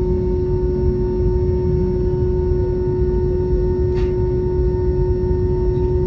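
Airliner cabin noise while taxiing: a steady low rumble with a constant hum tone over it, and a faint click about four seconds in.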